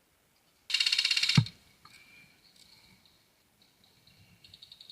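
Airsoft electric gun firing a short full-auto burst of rapid clicks, about 17 shots a second for under a second, ending in a low thump. Near the end a quieter second burst of rapid fire follows.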